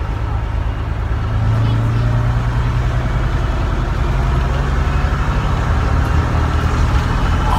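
Bristol RELL6L bus's rear-mounted Leyland six-cylinder diesel engine pulling along, heard from inside the passenger saloon as a steady low drone with a little more loudness from about a second in.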